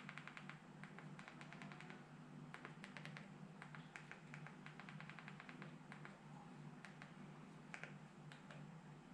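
Plastic buttons on a TV set-top box remote control clicking faintly in quick runs of repeated presses, the arrow keys stepping across an on-screen keyboard, over a faint steady hum.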